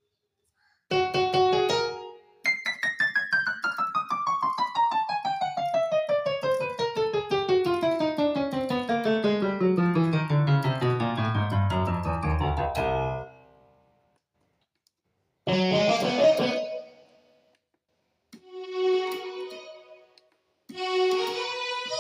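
Yamaha PSR-1000 arranger keyboard sounding through its own speakers as it is tested: a short note, then a long run of notes stepping steadily down from the high register to the lowest bass over about ten seconds, then a few short notes and a rising phrase near the end.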